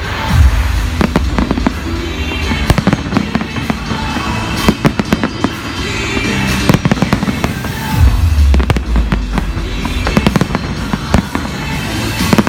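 Fireworks display going off: a dense stream of sharp bangs and crackling, with deep booms about half a second in and again about eight seconds in.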